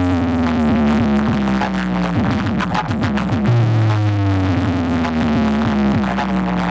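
Electronic dance music played loud through a large DJ sound system, with heavy bass under a drum-machine beat. A long synth tone slides downward twice, the second time starting about halfway through.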